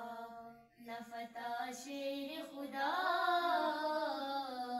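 A girl's solo voice singing the slow opening of an Urdu devotional manqabat into a microphone, with a brief break under a second in and then a long held, wavering note from about three seconds in.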